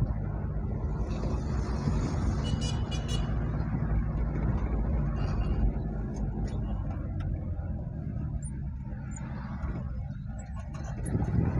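Steady low rumble of engine and road noise heard from inside a moving car, with a short, rapid high-pitched sound about two and a half seconds in.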